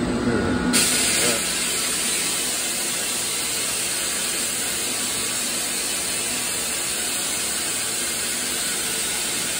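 Air compressors letting out a loud, steady hiss that starts suddenly about a second in and holds at an even level.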